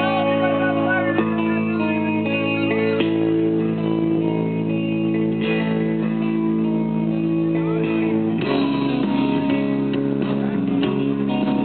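Music with guitar, held chords changing every second or so; a fuller, busier section with bass comes in about eight seconds in.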